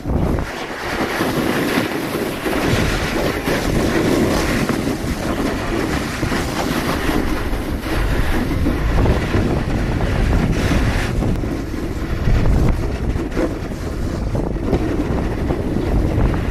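Wind buffeting the camera microphone during a fast ride, over a snowboard scraping across hardpack snow and ice. It is a loud, continuous rush.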